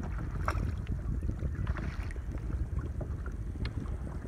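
Wind rumbling on the microphone, with small waves lapping and splashing now and then against a kayak's hull.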